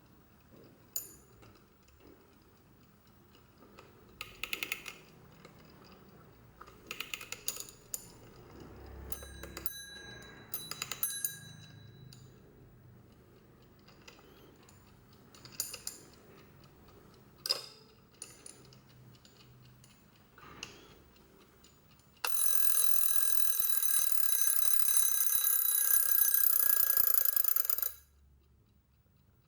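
Late-1970s Digitor wind-up mechanical alarm clock: scattered clicks and short ratcheting bursts as it is handled, then its alarm bell rings loudly for about six seconds and stops suddenly.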